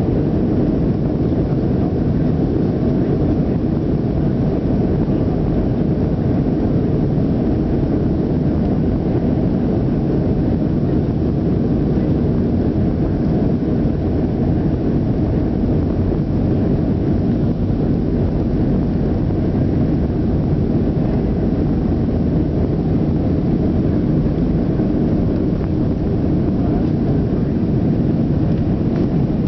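Boeing 737-300's CFM56-3 turbofan engines at takeoff thrust during the takeoff roll, heard inside the cabin. The noise is loud and steady, mostly low in pitch.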